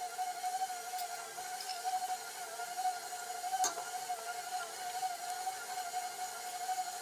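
Stand mixer motor running with a steady whine while its dough hook kneads bread dough, with butter being worked in, in a stainless steel bowl. A single sharp click sounds about three and a half seconds in.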